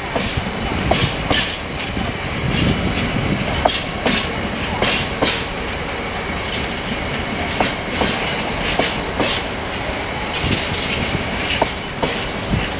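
Freight train of hopper wagons rolling past: a steady rumble with irregular clacks as the wheels cross rail joints, and a faint high wheel squeal.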